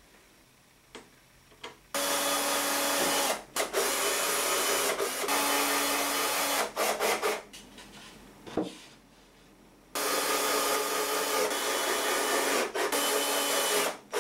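Cordless drill driver running under load, driving screws into plywood. It runs in two long spells of several seconds each, with short breaks in each spell.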